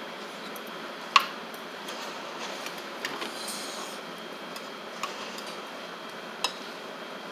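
Eating utensils clinking against dishes: one sharp clink about a second in, then three lighter clicks spread over the rest, over a steady background hiss.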